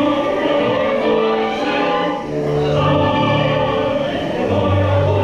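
Choral music: voices singing long held notes over an orchestral backing with a low bass line that changes note a few times.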